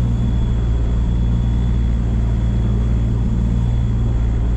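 Rotax 4-TEC 250 jet-boat engine running steadily at low speed with an even low hum, the jet pump churning water with the reverse bucket down, which gives next to no reverse thrust.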